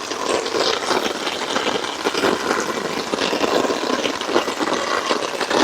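Steady rain shower: a dense, even patter of many drops.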